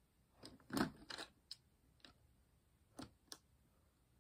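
LEGO plastic pieces clicking and knocking as they are handled and pressed together. A cluster of sharp clicks comes about a second in, then a few single clicks.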